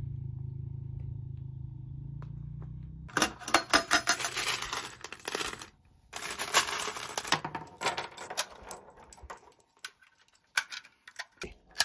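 A low steady hum, then, from about three seconds in, loose brass .223 cartridges rattling and clinking as they are handled in a metal ammo can. These are followed by sparser single clicks as rounds are pressed one at a time into a rifle magazine.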